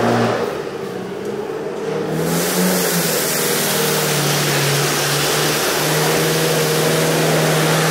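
Forklift's LPG engine running and revving, with a forklift sweeper brush scraping across the concrete floor from about two seconds in, a steady loud hiss as its bristles push cardboard and litter along.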